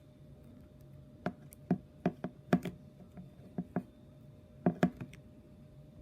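Slime being worked by hand, giving about a dozen short, sharp clicks and pops, several in quick pairs or clusters.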